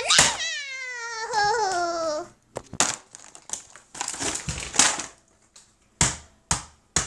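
A drawn-out squeal falling steadily in pitch for about two seconds, then rustling, crinkling and several sharp knocks of toys and the camera being handled.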